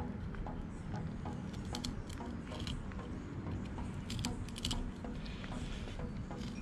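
A fillet knife cutting into a whole halibut on a granite tabletop: scattered small clicks and scrapes as the blade works through the skin and flesh, over a steady low rumble.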